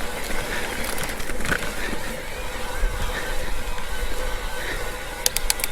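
Mountain bike rolling along the trail: steady tyre and wind noise on the ride camera's microphone, with a quick run of sharp clicks near the end.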